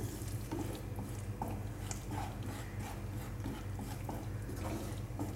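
Wooden spatula stirring and scraping thick masala paste in a frying pan, with small wet squelches and clicks scattered throughout, over a steady low hum.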